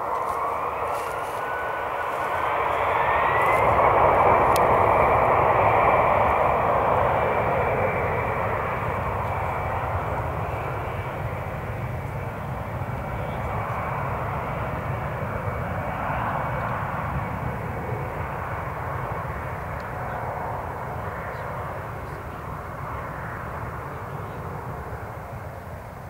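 Airbus A320-216's CFM56-5B turbofan engines spooling up to high power on the runway: a rising whine over the first few seconds, then a steady high-pitched whine over a loud roar that slowly fades.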